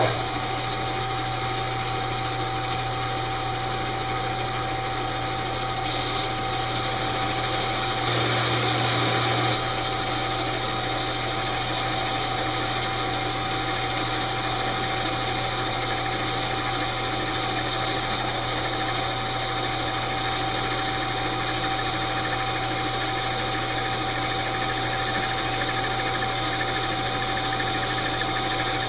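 Metal lathe switched on and running steadily, its motor and gearing giving a steady whine, with a slightly louder stretch about eight seconds in. It is spinning a face plate carrying a steel crankshaft turned between centers.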